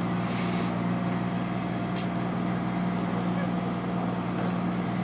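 A large truck engine running steadily with a constant low hum, typical of fire apparatus running at a fire scene.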